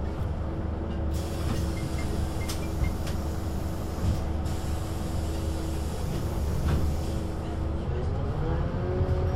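Scania CK280UB city bus with its five-cylinder 9-litre diesel idling: a steady low drone with a steady hum over it, and a hiss lasting about three seconds near the start. About eight seconds in, the engine note begins to rise in pitch as the bus pulls away.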